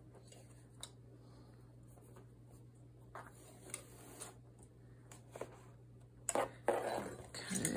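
A cotton potholder loop being drawn through the warp of a potholder loom with a long metal weaving hook: faint scattered clicks and rustling, then a louder stretch of rustling and scraping near the end as the loop is pulled through and pressed into place.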